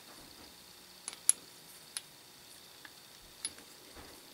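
Machined steel swivel vise jaw parts and their pivot pin clicking lightly against each other as they are handled: a few short, sharp metallic clicks at uneven intervals.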